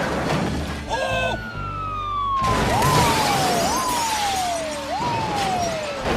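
Police car siren sounding in falling sweeps that rise sharply and slide down again about once a second. A burst of crash noise joins in a little over two seconds in.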